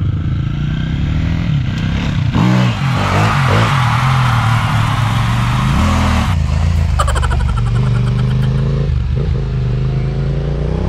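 Motorcycle engine running under way, its pitch dipping and rising with the throttle. A loud hiss lies over it from about two to six seconds in.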